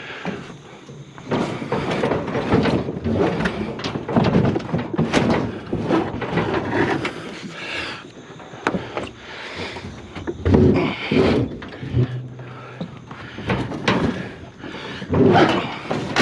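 Scrap and junk being handled and shifted around: a string of irregular knocks, thuds and scraping, the loudest about four seconds in, about ten seconds in and near the end.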